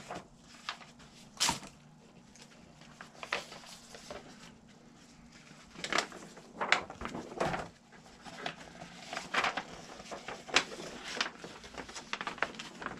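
Large paper plan sheets being leafed through and unfolded, with irregular rustles and crinkles.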